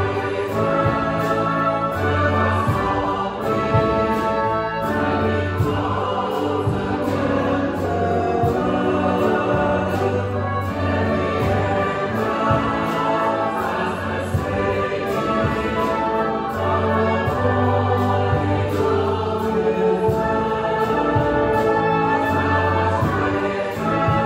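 Church choir singing in harmony with orchestral accompaniment, held notes over a deep sustained bass line.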